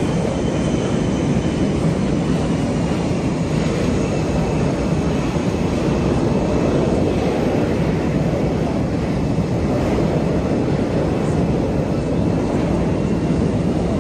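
Blue Angels F/A-18 Super Hornet jets running their General Electric jet engines on the ground, ready to taxi: a loud, steady roar with a faint high whine above it.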